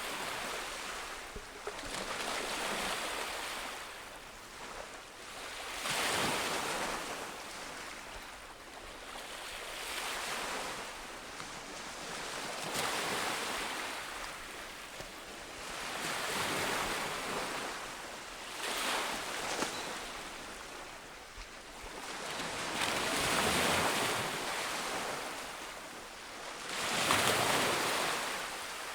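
Ocean waves breaking on a beach, the surf swelling and fading about every three seconds, with the loudest break near the end.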